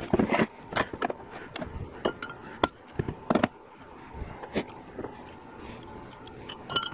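Scattered light knocks and clinks of metal parts and hand tools handled on a workbench, as an aluminium 4L60E transmission pump half is set down and small parts are picked up.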